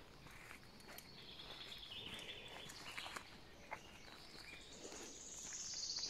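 Faint footsteps on a country road, with birds singing around; a high trill grows louder near the end.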